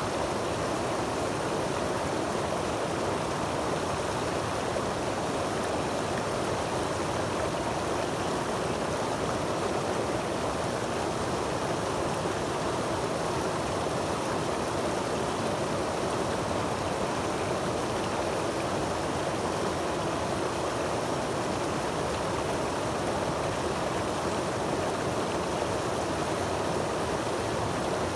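Creek water cascading over rock ledges into a pool: a steady, unbroken rush of churning whitewater.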